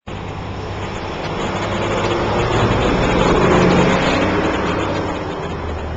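A motor vehicle driving past: a steady noise with a low hum that swells to a peak about three and a half seconds in and then fades.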